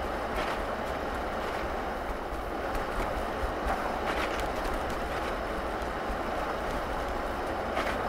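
Steady road noise heard inside the cabin of a Mercury Grand Marquis V8 sedan driving on a snow-covered road: tyres hissing over packed snow, with a low rumble underneath and a few faint clicks.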